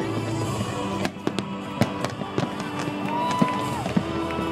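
Fireworks going off: a string of sharp bangs and crackles, several louder reports standing out, with music playing underneath.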